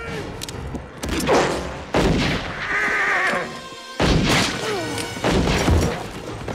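A movie gunfight: four heavy gunshots from revolvers and a double-barrelled shotgun, about a second in, at two seconds, at four seconds and past five, with a horse whinnying near the three-second mark and film score underneath.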